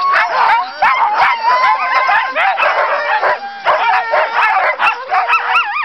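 A team of Siberian huskies in harness barking, yipping and howling all at once, a loud unbroken chorus of many dogs with held and sliding calls overlapping: sled dogs worked up and eager to run.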